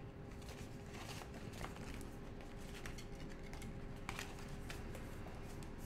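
Pages of a paperback manga volume being flipped and handled: faint, irregular paper rustles and light taps, over a faint steady hum.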